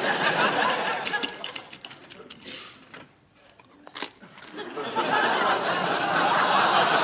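Studio audience laughing, swelling at the start, dying down, then rising again from about five seconds in. A single short crunch of a bite of toast about four seconds in.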